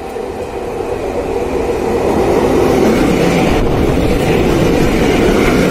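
Indian Railways WAG-7 electric freight locomotive approaching and passing close by. Its running rumble grows steadily louder over the first three seconds and stays loud as it goes past.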